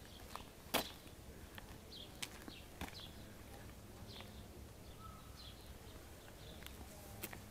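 Quiet outdoor background with a steady low rumble, a few sharp clicks (the loudest under a second in) and faint short high chirps scattered through it.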